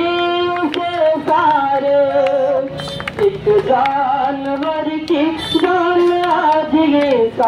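A man sings a Hindi song into a handheld microphone, holding long, wavering notes that step up and down in pitch. Short sharp clicks are scattered through.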